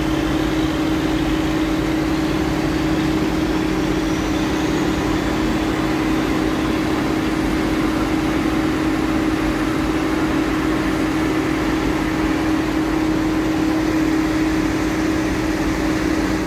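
Log loader's diesel engine running steadily, a constant unbroken hum.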